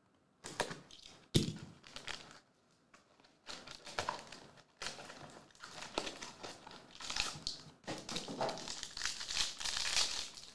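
Plastic shrink wrap crinkling as it is cut and pulled off a trading-card box, with a sharp click about a second and a half in. Near the end a foil card pack crinkles loudest as it is torn open.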